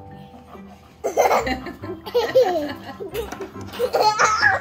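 A young child laughing, coming in bursts from about a second in, loudest near the end.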